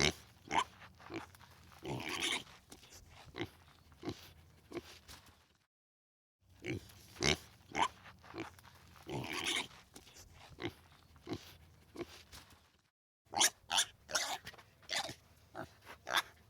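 Pigs grunting while crunching and chewing food: many short, sharp crunches with a few longer grunts between them. The sound drops to dead silence twice, briefly, where separate recordings are spliced together.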